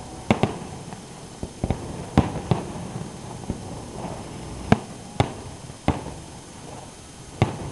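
Aerial fireworks shells bursting overhead: about eight sharp bangs at uneven intervals, some following close on one another.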